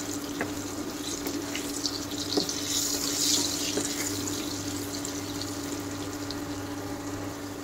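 Potato chunks sizzling as they fry in hot mustard oil in a non-stick pan, stirred with a wooden spatula that taps and scrapes the pan a few times; the sizzle swells for a moment about three seconds in. A steady low hum runs underneath.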